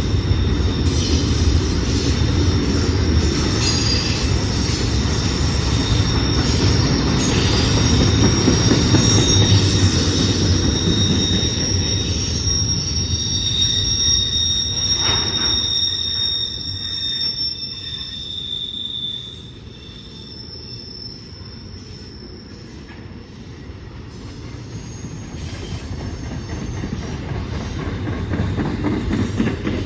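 CSX intermodal freight train's cars rolling past with a steady rumble and high-pitched wheel squeal over the first half. The squeal dies away and the train gets quieter about two-thirds of the way in, then the rumble builds again near the end.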